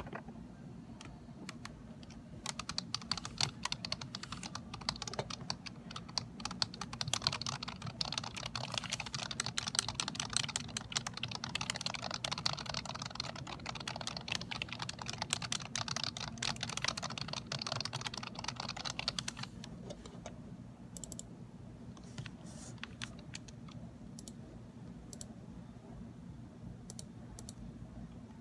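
Fast typing on a Dell computer keyboard: a dense, rapid run of key clicks that thins out to scattered single clicks about twenty seconds in, over a low steady hum.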